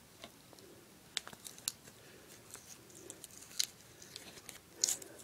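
Faint, scattered clicks and scrapes of scissors digging black powder out of a broken Piccolo Pete firework's cardboard tube, a few sharper scrapes standing out, the loudest near the end.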